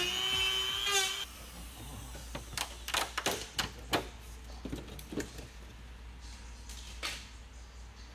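Scattered light clicks and taps of hand tools working at a car's wheel arch, about a dozen over several seconds. Before them, a whining tone with several pitches cuts off about a second in.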